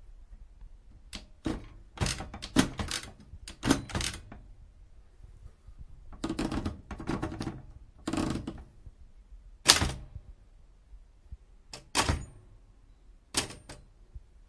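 Old manual typewriter being typed on: sharp key strikes in quick irregular runs with short pauses, and a few heavier single clacks.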